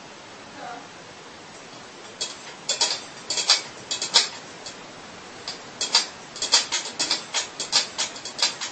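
A cat's paw tapping and scraping inside a stainless steel pet bowl, making quick, sharp clinks in irregular clusters from about two seconds in, over a steady hiss.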